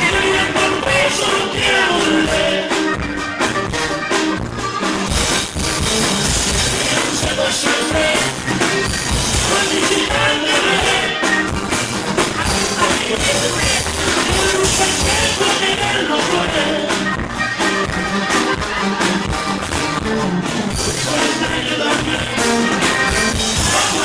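Rock band playing a song with a singer, drums keeping a steady beat under guitars and vocals.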